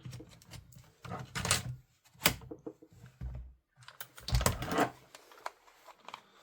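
Irregular clicks and knocks of an airsoft electric rifle being handled on the workbench, its parts worked by hand, a few of the knocks sharp and loud.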